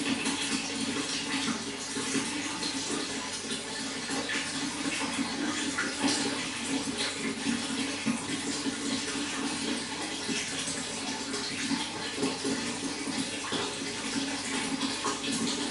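Running water flowing steadily, a continuous splashing rush with no breaks.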